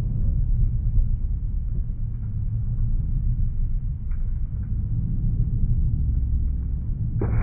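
Background music: a deep, steady low rumbling drone, with a brighter, fuller layer coming in near the end.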